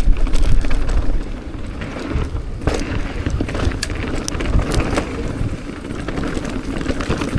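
Downhill mountain bike riding down a dirt trail: steady tyre and rolling noise with frequent knocks and clatter as the bike hits bumps.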